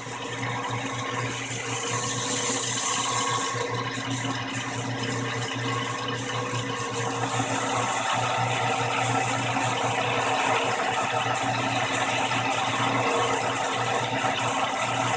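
Atlas 10F metal lathe running with a steady hum while its carriage is power-fed along a slow turning cut on a 304 stainless steel rod.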